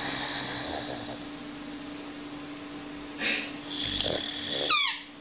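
Boxer dog snoring in its sleep, slow noisy breaths swelling louder twice in the second half. Near the end comes a short, high squeak that falls in pitch.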